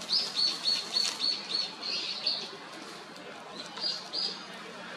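A small bird singing a quick run of about eight high, evenly repeated notes, then two more notes near the end.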